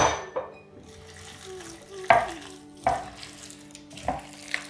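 A gloved hand mixing chicken pieces into wet besan batter in a glass bowl: several short, wet, sloppy sounds, the loudest about two seconds in.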